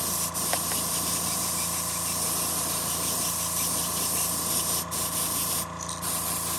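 Trigger-style airbrush with a 0.5 mm nozzle spraying white sealer at about 45 psi: a steady hiss of air and paint, broken briefly twice near the end as the trigger is let off.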